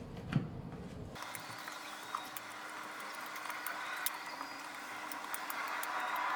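Electric stand mixer running as it kneads bread dough: a steady motor hum with many small ticks, coming in suddenly about a second in and growing slightly louder toward the end.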